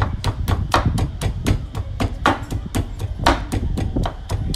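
Garlic cloves being pounded with a pestle in a mortar: a steady run of strikes, about four a second.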